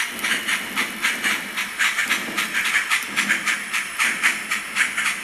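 Steam locomotive chuffing at a steady pace, about five hissing exhaust beats a second.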